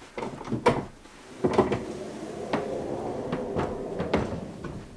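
Solid pine sliding barn door being hung and moved on its heavy-duty track: a string of knocks and clunks, with the rollers rumbling along the rail for a few seconds in the middle.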